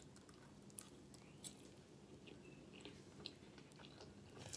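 Faint chewing of a mouthful of pancake, with a few short, soft clicks.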